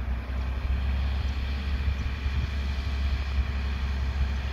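Diesel engine of a loaded FAW 380 HP 6x4 tipper truck running steadily as it approaches along the road: a steady low rumble.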